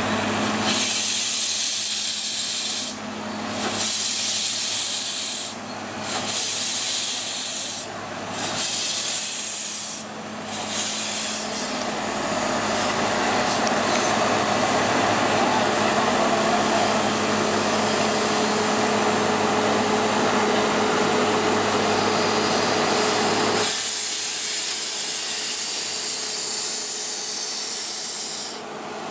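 Steam locomotive X-37398 of the Nilgiri rack railway hissing steam as it moves slowly: four bursts about two seconds apart, then one long continuous hiss for over ten seconds, dropping away a few seconds before the end.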